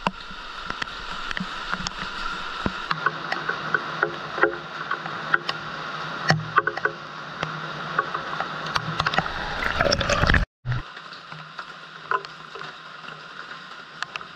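Heavy rain falling steadily, with water splashing and dripping around large clay water jars. The sound drops out for a moment about ten and a half seconds in, then carries on a little quieter.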